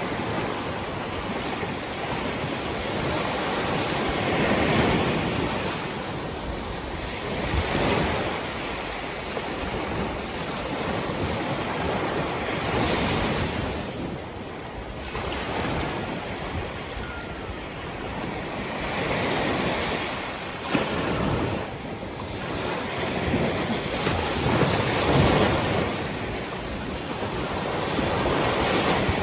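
Ocean waves breaking and washing up on the beach, the surf swelling and easing every few seconds, with some wind noise on the microphone.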